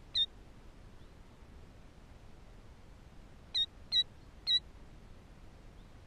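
Killdeer giving short, high peeps: one, then three in quick succession about three and a half seconds later.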